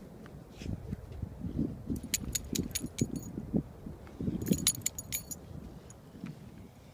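Dog's metal collar tags jingling in two bursts of quick clinks, about two seconds in and again around four and a half seconds, over dull thuds and scuffing as the dog paws and noses into the sand.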